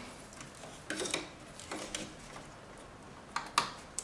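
A few light clicks and rustles of hard-drive data cables being handled and pushed into place inside a metal PC case.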